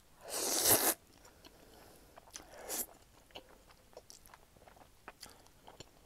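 A person slurps spicy instant ramen noodles, with one long slurp just after the start and a shorter one about two and a half seconds in. Soft chewing and small mouth clicks fill the gaps between them.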